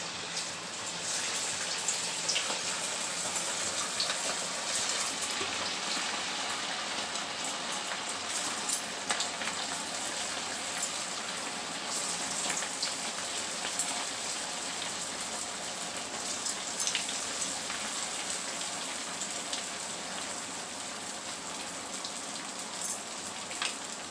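Kakara pitha, semolina cakes with coconut filling, sizzling as they deep-fry in hot oil in a steel kadai: a steady hiss full of small crackles and pops.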